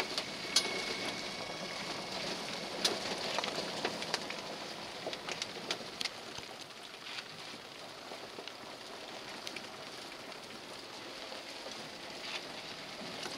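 Rain falling on a vehicle's windshield and roof, heard from inside the cabin: a steady hiss of rain with scattered sharp taps of single drops.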